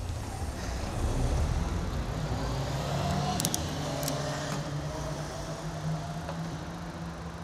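Bicycle riding on asphalt, heard from a low bike-mounted action camera: rumbling wind and road noise with a steady hum, and a few sharp, light rattling clicks about halfway through.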